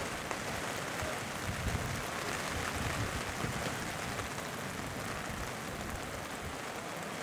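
Steady hiss of rain falling on an open pitch, with a few low rumbles underneath.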